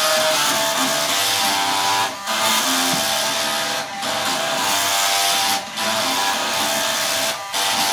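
An array of floppy disk drives playing a melody, their stepper-driven read heads buzzing out the notes as pitched, buzzy tones, with four short breaks between phrases.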